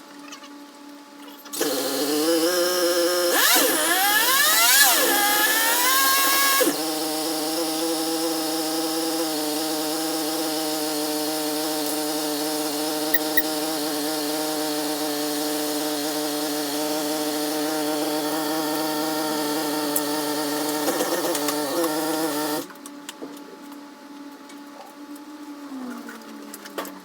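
A powered workshop tool's electric motor spinning up with a rising whine, running at a steady pitch for about fifteen seconds, then switched off abruptly.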